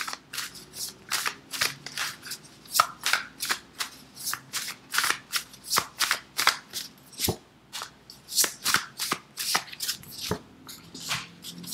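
A deck of tarot cards being shuffled by hand: a long run of quick, irregular card swishes and taps, two to four a second.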